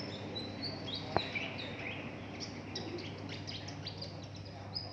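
Songbird singing in quick runs of short, high chirps, with a single sharp click about a second in and a steady low hum underneath.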